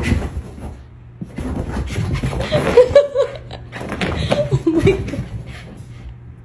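People laughing in short bursts while a dog has the zoomies, with a few knocks as it dashes about.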